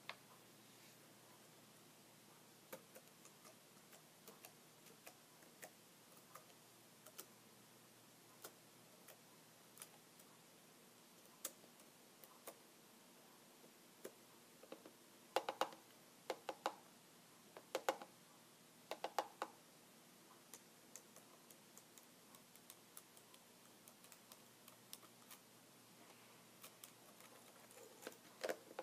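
Computer keyboard keys tapped slowly and softly: sparse single clicks at uneven intervals, with a few louder clusters of quick taps about halfway through.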